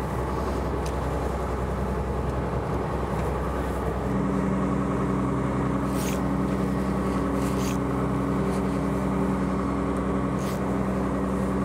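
Fishing boat's machinery running steadily as a constant low drone that grows a little stronger about four seconds in, with a few brief sharp clicks.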